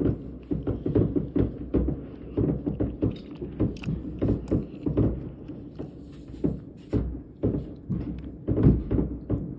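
New Year's fireworks going off in a dense barrage: a rapid series of booming bangs, about three or four a second, with echoing tails and a few sharper cracks about four seconds in.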